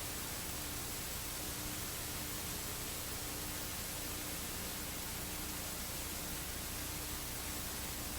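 Steady hiss of a recording's noise floor, with a faint low hum underneath and no other sound.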